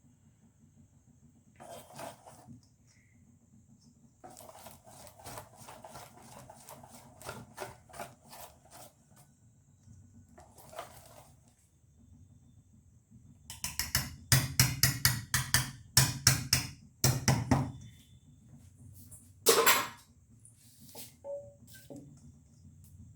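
Cake batter being stirred by hand in a bowl, the utensil knocking against the bowl in quick strokes of about three a second. About halfway through, the stirring becomes louder and faster for several seconds, followed by one longer, louder scrape or knock.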